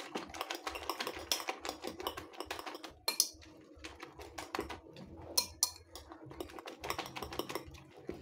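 Raw eggs with sliced red onion being beaten by hand in a glass bowl: a rapid run of clicks as the utensil strikes the glass, with a couple of sharper clinks about three and five and a half seconds in.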